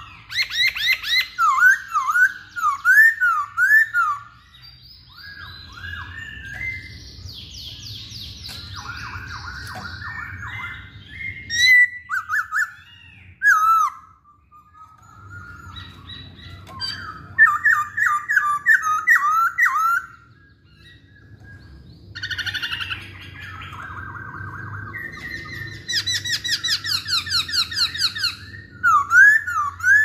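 Caged black-throated laughingthrush (poksay Hongkong) singing: loud series of quick, rising whistled notes alternating with varied warbling and chattering phrases, broken by short pauses.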